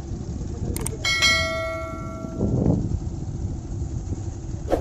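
Subscribe-button animation sound effect: a mouse click a little under a second in, then a bright bell chime that rings for about a second and fades, and another click near the end, over a steady low background rumble.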